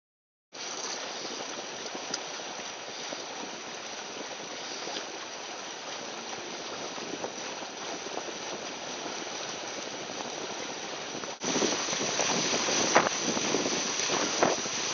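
Water rushing and splashing along the hulls of a sailing catamaran under way, a steady hiss starting abruptly about half a second in. About eleven seconds in it jumps louder, with sharper splashes of spray as the bow cuts through the chop.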